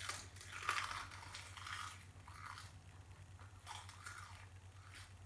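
A person biting into and chewing a crisp roasted seaweed sheet: irregular crunches, loudest in the first second, coming in clusters and thinning out after about four seconds.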